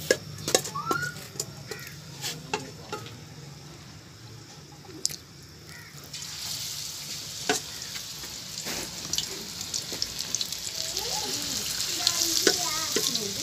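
Pakora batter frying in hot oil in a karahi: a sizzle that swells from about six seconds in and keeps growing louder. A metal spoon clinks against the pan a few times in the first seconds.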